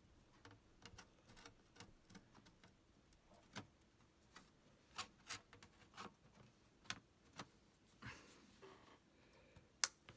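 Faint scattered clicks and taps of a MacBook Pro's aluminium bottom case being handled and fitted back onto the laptop, with one sharper click near the end.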